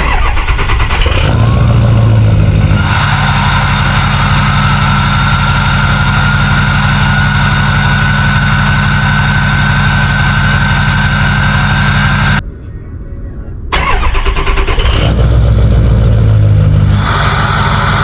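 Diesel truck engine starting up and settling into a steady idle, with a high whine that rises slowly over the idle. The sound drops away sharply about twelve seconds in, then the engine is heard again.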